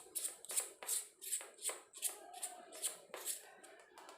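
Hands fitting parts of a lavalier mic's small plastic battery housing together: a quick series of short scraping, rustling strokes, about three a second, that die away near the end.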